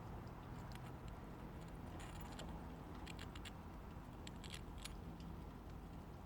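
2010 Toyota Yaris engine running with a faint, steady low hum; the owner reports that this engine misfires and shakes at idle. Light metallic jingling clicks come a few times in the middle, like keys on a keychain.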